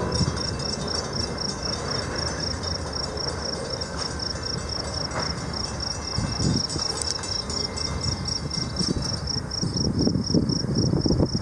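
Low rumbling noise as the tail end of a freight train of covered hoppers rolls clear of the crossing. An insect's high, even chirp pulses about four times a second over it.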